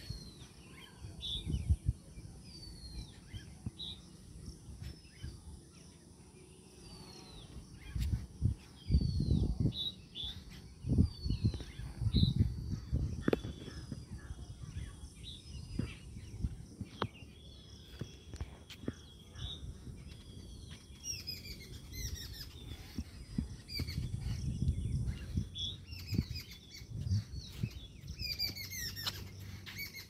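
Jungle babblers calling: short downward-sliding chirps come about once a second, then grow denser and busier in the last third. Low rumbling noise on the microphone comes and goes.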